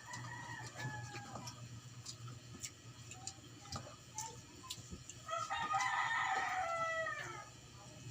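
A rooster crows once, a long call beginning about five and a half seconds in that drops in pitch at its end. A fainter call comes near the start, with light scattered clicks.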